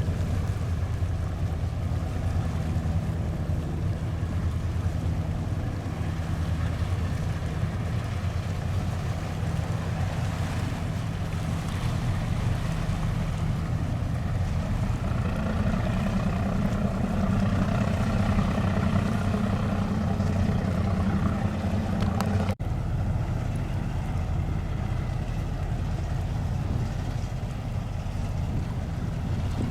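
Fast ferry's engines running with a steady low hum, getting louder from about halfway through, with a brief sudden break about three-quarters of the way in.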